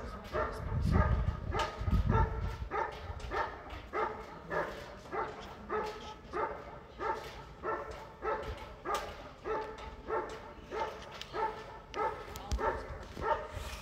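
German Shepherd Dog barking steadily and rhythmically at the protection helper, about three barks every two seconds, holding him at bay in IGP protection work. Wind rumbles on the microphone for the first couple of seconds.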